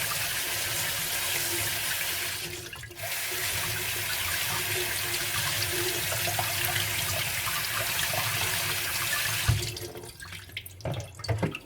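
Cold water running from a kitchen tap into the sink to rinse chicken hearts: a steady rush that dips briefly about three seconds in and stops near the end, followed by a few light knocks.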